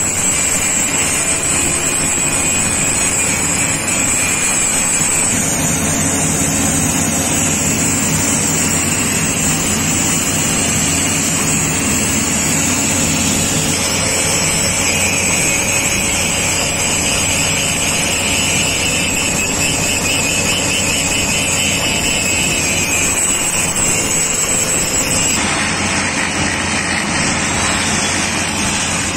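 Electric angle grinder running steadily with a high motor whine, its abrasive disc grinding down the flash-butt weld collar on a steel rail. About 25 seconds in the sound changes to a rail profile grinder's motor and grinding stone working the top of the railhead at the weld.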